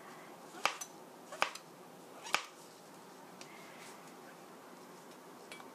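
Chef's knife slicing mushrooms on a plastic cutting board: three sharp knocks of the blade on the board in the first two and a half seconds, then a few fainter taps.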